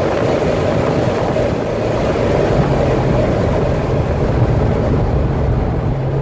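Corvette C6 Z06's 7.0-litre LS7 V8 running at a steady, low engine speed, with road and wind noise.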